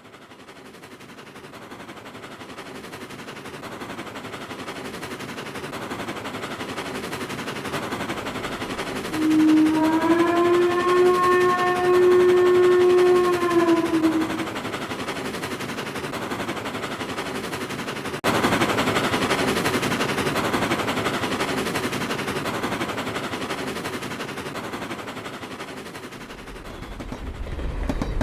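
Steam train approaching, a rapid, even chuffing growing steadily louder, with its steam whistle blown once for about five seconds in the middle. About two-thirds of the way through the sound jumps suddenly louder, and a deep rumble builds near the end as the train draws close.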